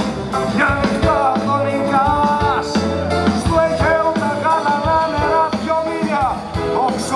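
A male singer's voice over a live band, with drums and electric bass guitar.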